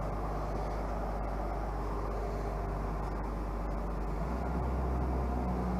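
An engine running steadily with a low, even hum, its note changing about four seconds in.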